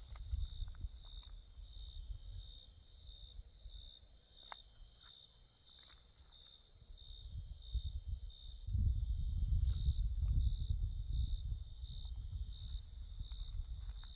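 Night insects chirping steadily, one regular high chirp repeating about every two-thirds of a second over a faster, higher trill. A low rumble swells under them in the middle and eases off near the end.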